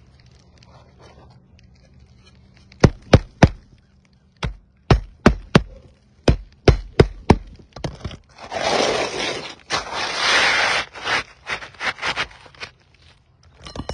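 About a dozen sharp knocks in quick groups, then a few seconds of scraping, with more scattered knocks near the end.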